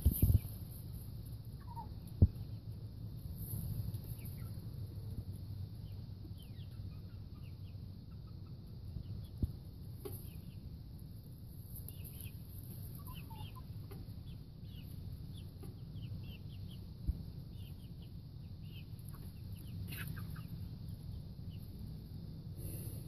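A hen making soft, scattered clucks and short chirping calls, with a few sharp single taps, over a low steady rumble.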